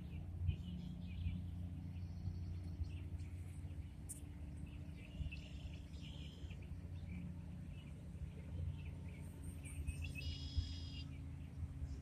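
Small birds chirping and calling, with a clearer, stronger call about ten seconds in, over a steady low rumble.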